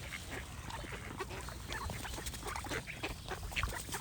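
A flock of waterfowl, ducks and geese, calling: many short overlapping calls over a steady low rumble.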